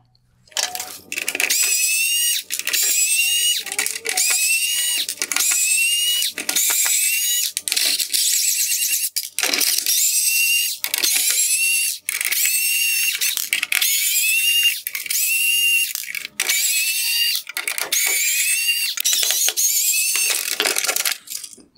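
T20 Torx screws being turned out of the plastic trim of an LED headlight housing with a screwdriver. A high squeak rising in pitch comes with each turn, about two a second, with brief pauses between screws.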